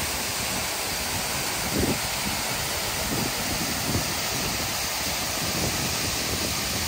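Waterfall pouring into its plunge pool: a steady rush of falling water, with a few brief low rumbles about two and four seconds in.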